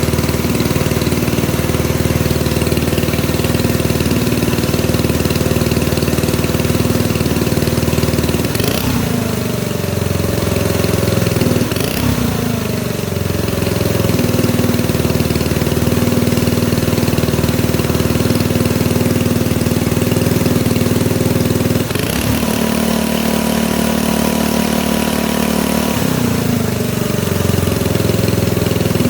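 Engine sound of a model Cat D11 bulldozer, idling steadily. It revs briefly twice, about a third of the way in, falling back in pitch each time, then holds a higher rev for about four seconds near the end before dropping back to idle.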